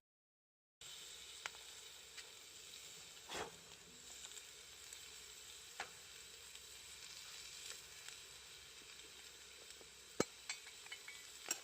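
Food sizzling steadily in a pot over a campfire, starting about a second in, with scattered sharp clicks and pops, the loudest near the end.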